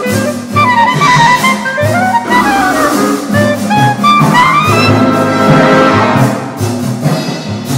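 Full symphony orchestra playing a loud, fast passage of a contemporary clarinet concerto, with brass prominent and percussion struck repeatedly, including timpani and marimba. Quick runs climb and fall in steps over the ensemble.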